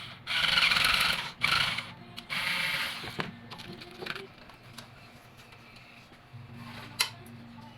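Handling noises from PC parts being worked on: three loud bursts of rubbing and rustling in the first three seconds, then scattered light clicks, with one sharp click about seven seconds in.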